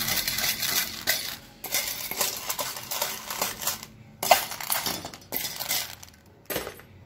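Dry cat kibble rattling and clinking in stainless steel bowls as they are handled, in a run of short, irregular clatters.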